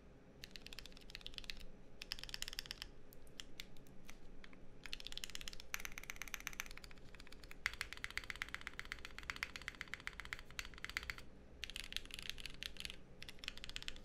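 Keycult no. 2/65 mechanical keyboard (aluminium plate, lubed Auralite linear switches, GMK keycaps) with its keys struck rapidly in bursts and short pauses. The long stabilized keys are being tested: the lubed Durock v2 stabilizers, which the builder is happy with.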